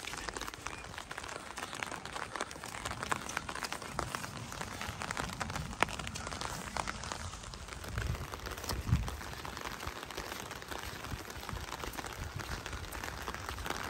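Footsteps through wet grass with rustling of clothing and the handheld phone, a steady run of small crackles and ticks. Two louder low thumps come about eight and nine seconds in.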